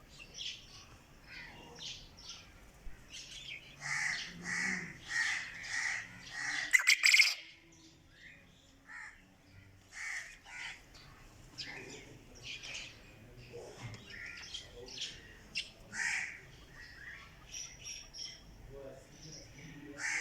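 Quail calling: short repeated calls, with a run of about six evenly spaced notes in the first third, then scattered single calls. A few sharp clicks sound just after the run of notes.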